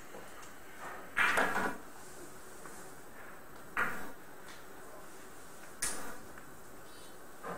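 Four short knocks or clatters. The first, about a second in, is the loudest and longest; three fainter ones follow about two seconds apart.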